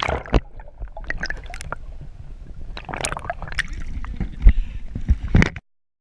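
Water splashing and gurgling close to the microphone, mixed with irregular knocks and bumps. The sound cuts off abruptly near the end.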